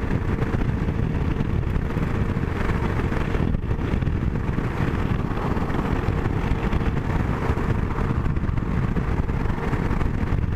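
Suzuki V-Strom SX 250 motorcycle riding at steady speed on the highway: its single-cylinder engine runs under a constant rush of wind noise.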